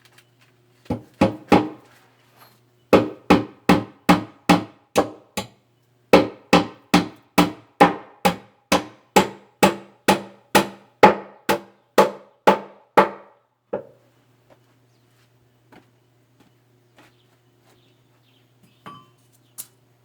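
Hammer blows on wood in steady runs of about three strikes a second, each with a short ring, probably building a cupboard; the runs are three, seven and about seventeen blows long, then they stop about two-thirds of the way through.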